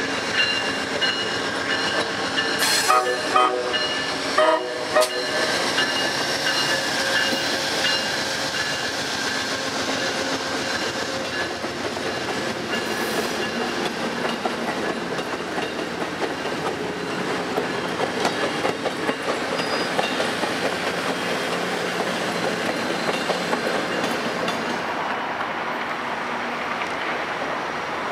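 Amtrak passenger train passing close by. A steady horn sounds through the first several seconds with a few sharp knocks, then the cars' wheels clatter over the rail joints as they roll past.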